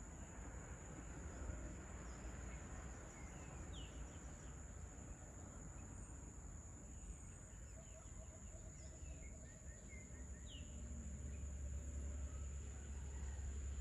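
Dusk ambience of tropical treetops: a steady high insect drone under scattered short bird chirps, with a brief run of lower repeated bird notes about halfway through. A low rumble builds toward the end.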